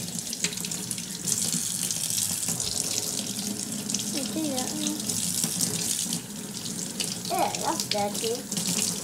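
Kitchen tap running steadily into a stainless steel sink, the water splashing over a potato being rinsed by hand under the stream.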